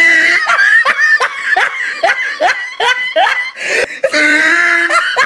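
A person laughing hard in a long run of quick bursts, about three a second, then a longer drawn-out laugh near the end.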